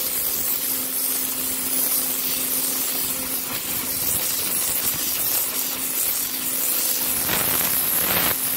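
Pressure washer spraying a concrete patio, its jet a steady hiss over a constant hum from the machine, blasting off the dirt embedded in the concrete.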